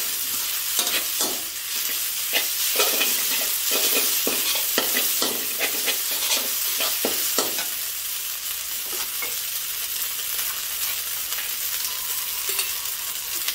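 Metal spatula scraping and tossing rice vermicelli with pork and egg in a hot steel wok, over a constant frying sizzle. The scraping strokes stop a little past halfway, leaving mostly the sizzle.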